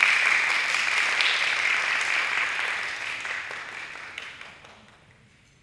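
Audience applause dying away, fading out over about five seconds.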